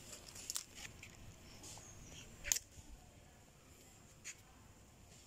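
Quiet background with a few scattered faint clicks, the sharpest about two and a half seconds in.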